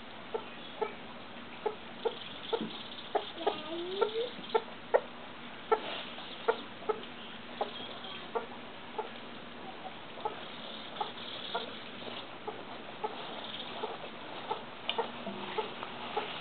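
A broody hen clucking steadily, short low clucks about two to three a second, with one rising squawk about four seconds in.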